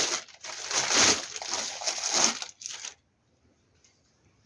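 Rustling and crinkling of plastic packaging being handled, which stops about three seconds in.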